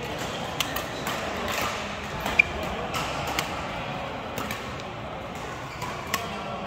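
Badminton rally: sharp racket strikes on the shuttlecock and knocks of footwork on the court, scattered irregularly over a steady background hum. The loudest strike, about two and a half seconds in, is a single sharp crack with a brief ping.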